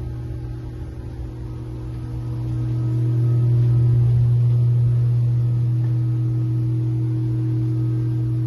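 A steady low-pitched hum with fainter higher tones above it, growing louder about three seconds in and then holding.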